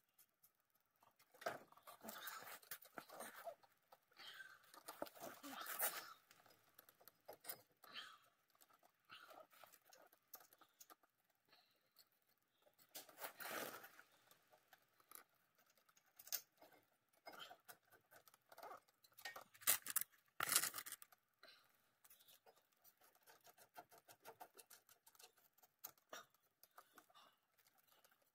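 Faint, irregular clicks, scrapes and rustles of hands working metal brake parts at a car's front wheel hub, with clothing brushing close to the microphone. They come in flurries, and the loudest is about two-thirds of the way through.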